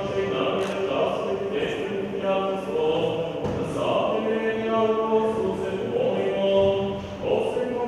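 Orthodox liturgical chanting: sung voice holding notes and moving step by step from pitch to pitch, without pause.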